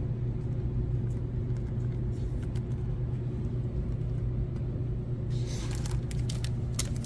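A steady low hum runs throughout, with faint clicks of trading cards and hard plastic card holders being handled and a brief plastic rustle about five seconds in.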